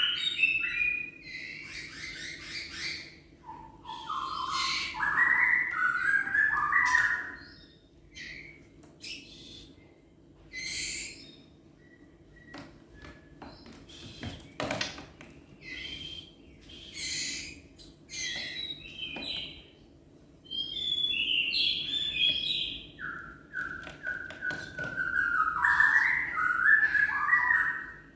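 A wild songbird singing in long, varied warbling phrases, with shorter chirps and calls in the gaps between phrases.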